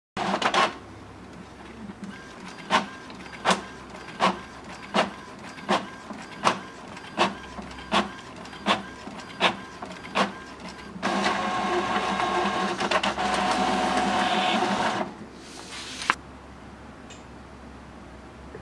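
Epson EP-879AW inkjet printer printing a sheet: sharp clicks about every three-quarters of a second, then a louder steady whirring for about four seconds, ending with a single click.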